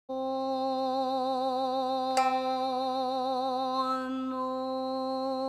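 A sustained musical tone held on one pitch with a slight vibrato, starting abruptly, with a click about two seconds in.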